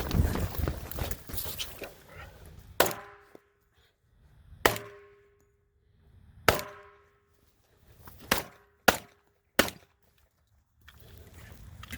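Pistol fired six times at an uneven pace, the last three shots coming quicker, each sharp report followed by a short ringing tone. A rustle of handling comes before the first shot.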